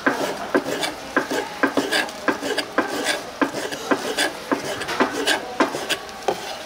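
A knife chopping sundae and offal on a cutting board: a run of sharp knocks, about two a second, each with a short ring.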